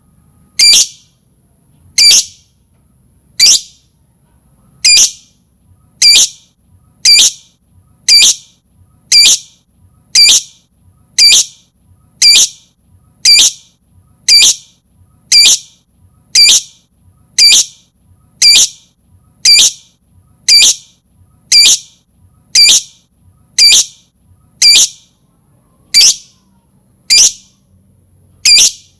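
Lovebird giving a short, shrill, high call repeated evenly about once a second: a pancingan (lure) call used to set other lovebirds calling.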